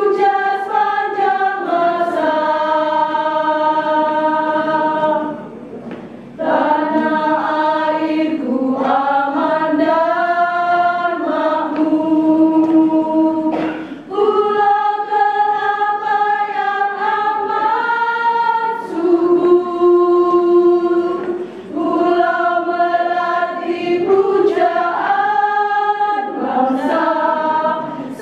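Women's choir singing in harmony: long held notes in several parts, sung in phrases with short breaks between them about six and fourteen seconds in.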